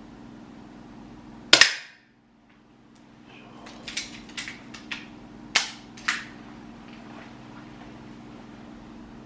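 APS airsoft target pistol firing a single shot about a second and a half in, a sharp crack. A run of lighter clicks and two sharper knocks follow a few seconds later.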